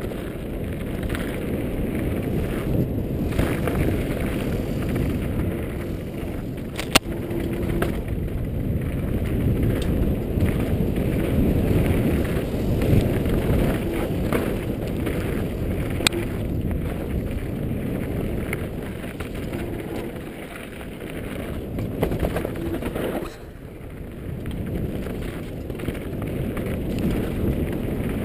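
Giant Glory downhill mountain bike ridden fast down a rocky dirt trail: a steady rough rumble and rattle of tyres over dirt and stones, heard through a helmet-mounted GoPro, with two sharp knocks about seven and sixteen seconds in.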